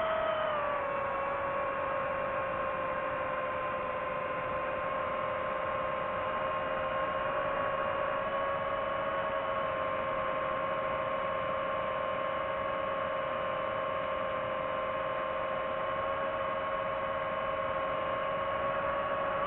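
DJI FPV drone's motors and Gemfan Hurricane 5236 propellers whining steadily in flight. The pitch drops slightly about a second in as the throttle eases, then holds level.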